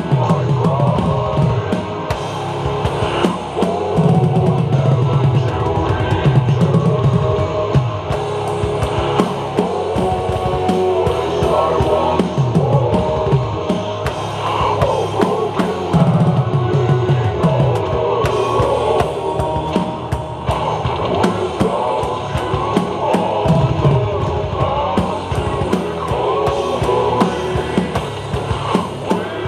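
Drum kit played live along with a heavy rock recording: kick, snare and cymbals hit steadily over sustained guitars and bass, with no pause.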